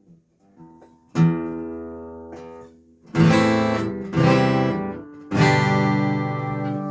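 Martin acoustic guitar strummed through its transducer pickup: a few soft picked notes, then four strummed chords, the last left ringing out.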